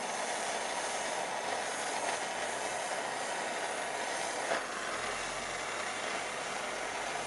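Steady hiss of a silversmith's gas torch flame heating a silver knife handle while silver solder is fed into the seam, with one brief tap about four and a half seconds in.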